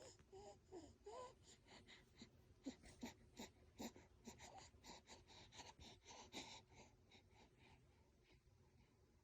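A newborn baby fussing faintly. A few high, squeaky whimpers come first, then a run of short, breathy whimpering sounds, two or three a second, which die away near the end.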